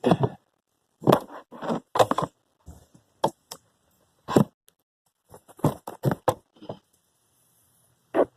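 Irregular knocks, clunks and scrapes of parts and tools being handled while a car's heater blower motor is fitted back into place, with short quiet gaps between them.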